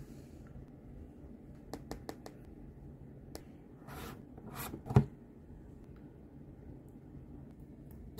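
A plastic slime jar being handled: a few light clicks, then its screw-on plastic lid twisted off with short scraping sounds, and a single thump about five seconds in, the loudest sound. A low steady hum runs underneath.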